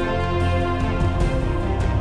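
Background music with a steady beat and sustained bass.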